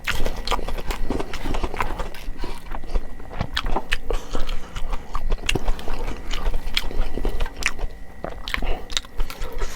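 Close-miked eating: a person biting and chewing food, with many quick, sharp mouth clicks.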